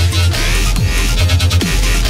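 Background electronic music with a heavy, sustained bass line and repeated downward pitch sweeps, no vocals.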